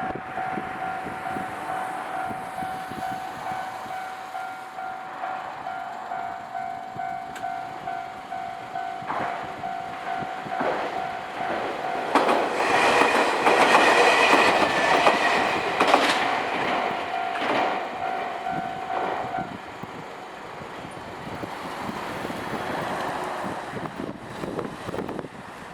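Japanese level-crossing warning bell dinging in a steady repeating rhythm while a Nankai electric train passes over the crossing, its wheels clacking over the rail joints; the train is loudest around the middle, and the bell stops a few seconds after it has gone by.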